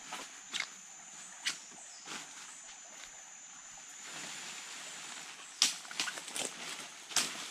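Footsteps crunching and rustling through dry leaf litter and undergrowth, with sharp snaps of twigs and branches, the loudest about five and a half and seven seconds in. Under it a steady high insect drone fades out about halfway.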